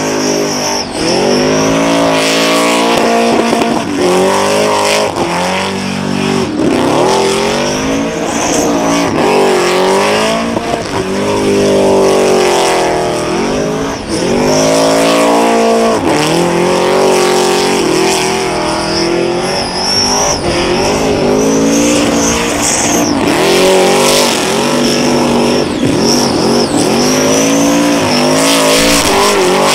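Supercharged Holden Commodore doing a burnout: the blown engine is held high in the revs, its pitch swinging up and down every second or two as the throttle is worked. The spun rear tyres squeal on the pavement underneath.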